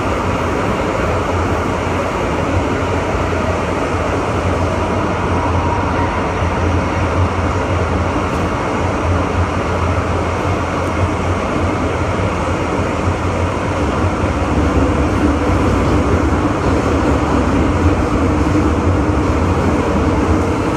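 MTR Island Line M-Train running through a tunnel, heard from inside the train: a steady rumble of wheels and motors with faint steady whines, growing a little louder in the second half.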